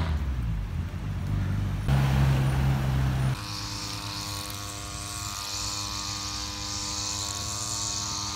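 Road vehicle engines passing for about three seconds. Then an abrupt switch to a steady hum of many even tones with a high hiss above it.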